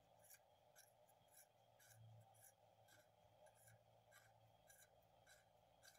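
Near silence: faint room tone with a low hum and faint ticks about twice a second.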